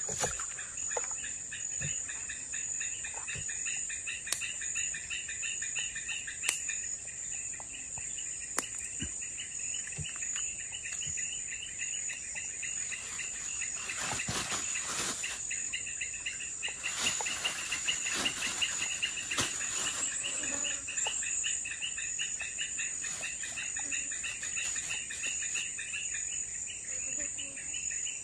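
Insect chorus: a steady high buzz with a rapidly pulsing trill beneath it. A few sharp clicks and short patches of rustle-like noise come through midway.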